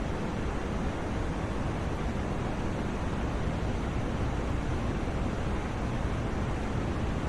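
Steady white noise for sleep: an even, unchanging hiss, deepest in the lows and thinning out in the highs.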